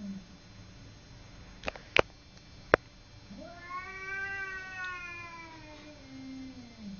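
Cats yowling at each other in a territorial standoff. A long, drawn-out yowl rises and then slowly falls in pitch, starting a little under halfway in, after the tail end of a falling yowl at the very start. Three sharp clicks around two seconds in are the loudest sounds.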